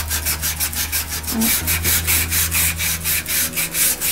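Sandpaper rubbed by hand in quick back-and-forth strokes over a shiny black picture frame, about six or seven scratchy strokes a second. The glossy finish is being scuffed so that paint will stick to it.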